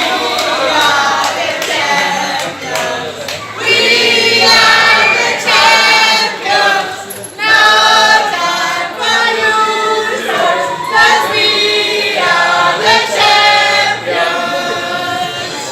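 A crowd of people singing together in chorus, loud and sustained, with a few short breaks.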